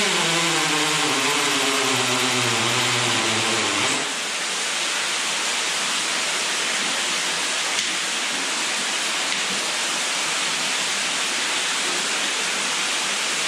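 Cordless drill boring into the cave rock for a bolt anchor, its motor running with a wavering pitch for about four seconds and then stopping. A steady loud rush of falling water runs throughout.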